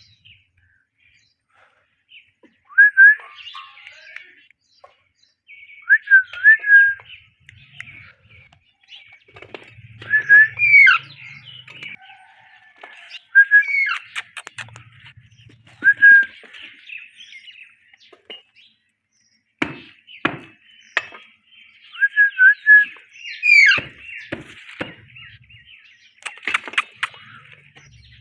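Ringneck parrots chirping: short groups of shrill, quick calls repeated every few seconds, with a few sharp clicks in between.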